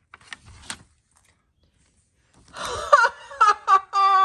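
Soft paper rustle of a book page being turned, then from about halfway in a child's voice doing a villain's evil laugh, "mwahaha": a few short bursts ending in one long falling "haaa".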